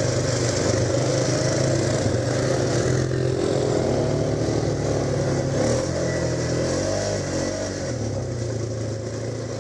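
ATV engine running while riding along a dirt trail, its pitch rising and falling a little midway, then fading away toward the end.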